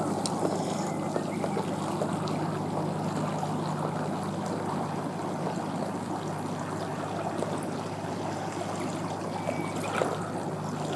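Water trickling and splashing over a steady low motor hum, the hum fading near the end.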